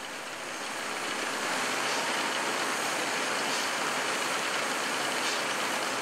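Case steam skid engine running under load, driving the sawmill through a long flat belt: a steady mechanical rush with a few faint knocks.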